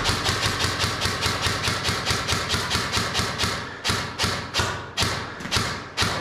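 A fast, even run of sharp thuds, about six or seven a second, with a brief break about four seconds in.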